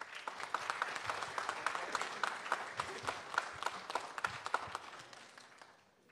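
Congregation applauding, a dense patter of many people clapping that starts at once and fades away over the last second or so.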